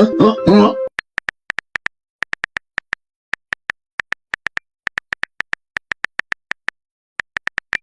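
Plucked-string music ends about a second in, followed by a long run of short, high electronic beeps, all at one pitch, coming in quick irregular clusters with silent gaps between them.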